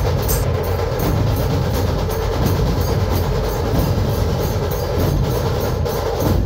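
Dhol-tasha ensemble playing: many large dhol barrel drums beaten together with sticks in a loud, driving, unbroken rhythm, with sharp tasha strikes cracking over the deep drum tone.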